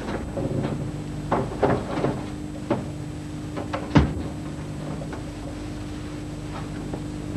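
A cupboard door being opened and handled: a run of clicks and knocks from the handle and door, the loudest a thump about four seconds in, then quieter. A steady low electrical hum runs underneath.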